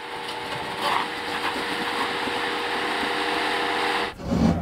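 Jeep Gladiator crawling over granite boulders: a steady rasping scrub of tyres grinding on rock, with a faint steady hum beneath. It stops abruptly about four seconds in.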